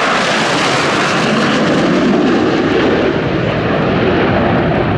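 Jet engines of a formation of Blue Angels F/A-18 jets flying past, a loud, steady noise.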